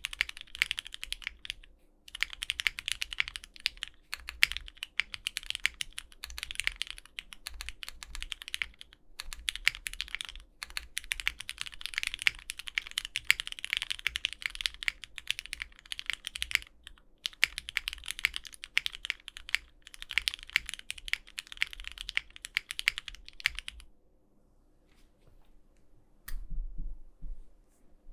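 Typing on a custom 60% mechanical keyboard with lubed, filmed Hyperglide Cherry MX Black linear switches on an aluminium plate and GMK keycaps, running in fast bursts with short pauses. It stops for about two seconds near the end, then a low thud and more keystrokes follow.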